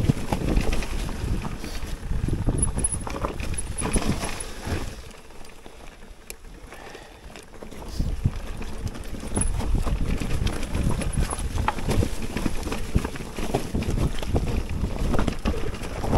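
Mountain bike descending a rough trail: a dense run of knocks and rattles from the frame, chain and tyres, easing off for a few seconds in the middle before picking up again.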